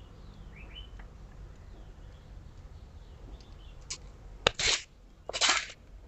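Faint bird chirps in the background. Then, about four and a half seconds in, a sharp metallic click and two short rattling scrapes as the chain is handled through the cage of a Shimano Tourney rear derailleur.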